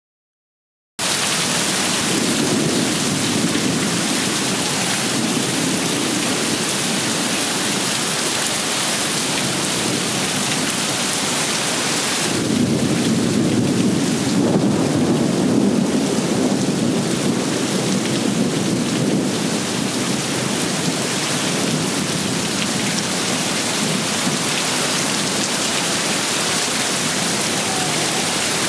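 Heavy rain pouring down steadily, starting about a second in. About halfway through it swells for several seconds, louder and deeper.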